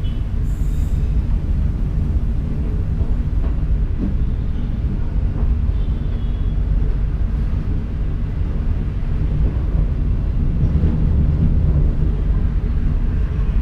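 Passenger train in motion, heard from the rear of its last coach: a steady low rumble of the wheels running on the rails, with a few faint light ticks.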